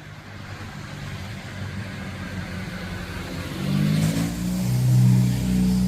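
A motor vehicle passing close by: tyre hiss building, then an engine note rising in pitch and getting loud in the second half.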